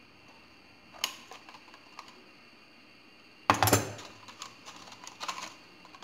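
Scissors snipping a plastic bottle in light clicks, then put down on the table with a loud knock about three and a half seconds in, followed by a run of small clicks and crackles as the cut plastic bottle is handled.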